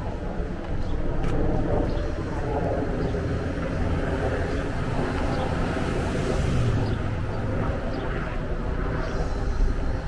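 Steady road and engine noise of cars moving in street traffic, a continuous low rumble.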